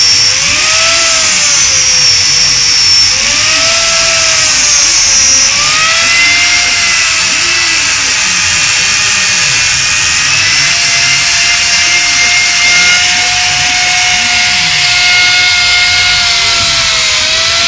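Hand-held grinder with a small abrasive disc running against the metal of a Kawasaki KZ1300's generator cover, its whine sagging and rising again over and over as the disc bites and eases off. In the second half the pitch holds steadier.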